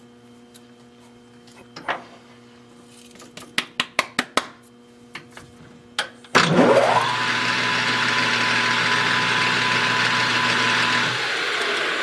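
Tools being handled with several sharp clicks and knocks. About six seconds in, a lathe spindle motor starts with a quick rising whine and then runs at a steady speed with a high whine and hiss.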